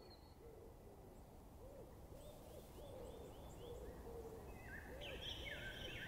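Faint birdsong: low, repeated hoot-like calls under higher chirps, growing louder, with a run of quick falling chirps near the end.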